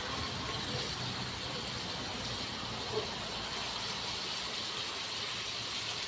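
Shrimp, squid and sliced meat sizzling steadily in a hot steel wok, with one light knock about halfway through.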